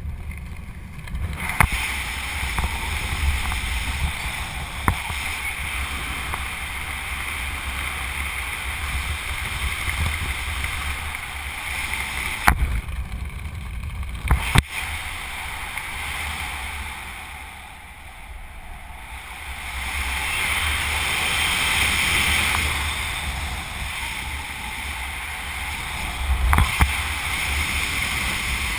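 Wind rushing over a helmet-mounted camera microphone during a parachute canopy descent: a steady rumbling hiss that eases for a couple of seconds past the middle, broken by a few sharp knocks.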